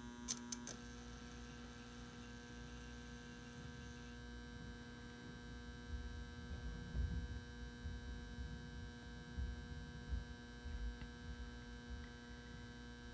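Magnetic M59 metal halide ballast and the freshly struck high pressure sodium retrofit lamp humming steadily at mains frequency as the lamp warms up. A few quick clicks come in the first second, as the arc strikes, and irregular low rumbles come in the middle.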